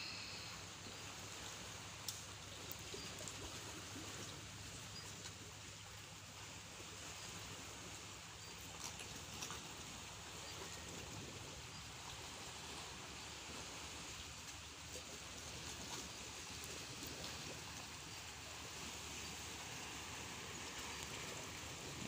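Gentle sea waves lapping against shore rocks and a concrete edge: a steady soft wash of water, with a few faint clicks.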